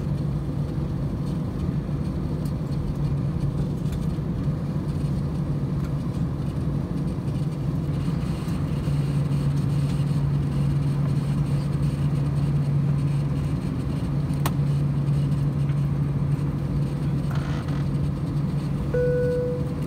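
Steady low hum inside an Airbus A319 passenger cabin as the jet pulls up to the gate. The hum grows a little louder about nine seconds in, and a short tone sounds near the end.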